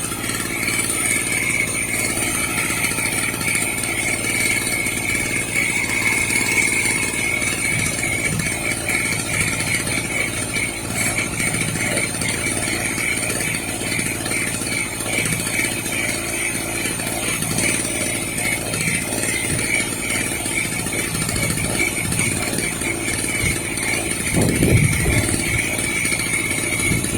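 Small portable generator's engine running steadily, with a steady high whine over it; it briefly gets louder about three seconds before the end.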